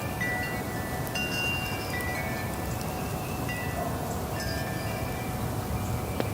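Metal wind chimes ringing in the wind, their clear high tones struck at irregular moments and fading out over a steady breezy hiss. A sharp click comes near the end.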